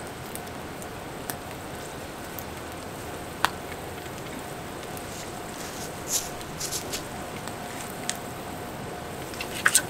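Split-wood campfire crackling in a small folding steel fire stand: scattered pops and snaps over a steady faint background, with a sharp pop about three and a half seconds in and a quick cluster of snaps near the end.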